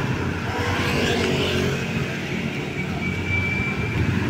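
Tour bus diesel engine running with a steady low rumble, and a brief faint high tone about three seconds in.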